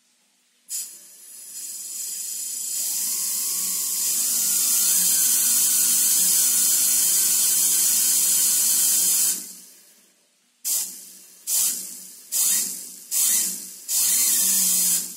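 Compressed air blasting through a small 3D-printed air turbine. A short puff, then a long steady hiss of about eight seconds with a faint whine rising in pitch as the rotor spins up, which cuts off sharply. Then five short bursts of air, the last one longer.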